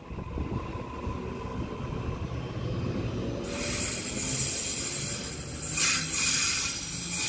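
Double-deck electric commuter train pulling out of the platform close by, its wheels and traction gear running. A sharper hiss of wheel and air noise comes in about halfway through as the last car passes.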